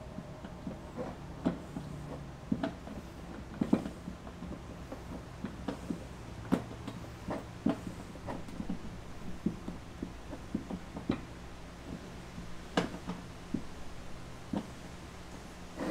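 Irregular metallic clicks and light knocks of a hand wrench working the bolts on a Gorilla Cart's steel frame as they are tightened during assembly.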